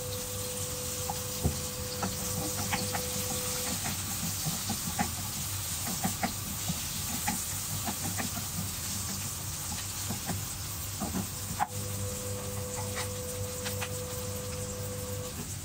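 Sliced onions and ginger sizzling in oil in a non-stick wok, with the spatula clicking and scraping against the pan as it stirs. A steady hum sits underneath at the start and again near the end.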